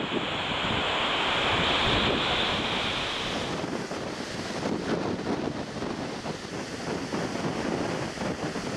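Storm wind buffeting the microphone over surf and choppy harbour water, in uneven gusts. About three and a half seconds in, a steady hiss drops out and the rumbling gusts carry on.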